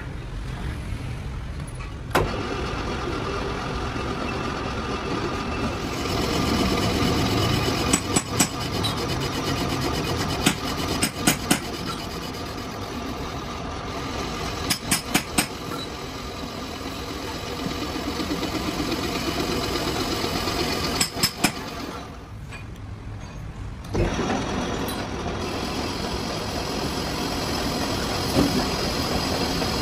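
Metal lathe running, its single-point tool cutting a spinning iron bar, with a steady machine hum and cutting noise. Clusters of sharp clicks come several times, and near the end the noise dips for about two seconds before a knock and the running sound returns.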